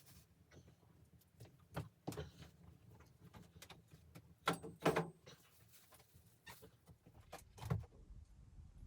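Scattered knocks and clatters of objects being handled, the loudest two coming close together about halfway through.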